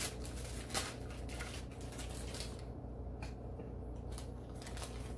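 Hands unwrapping and handling an adjustable measuring spoon set: a string of soft rustles and small clicks, dense in the first half and sparser after, over a steady low hum.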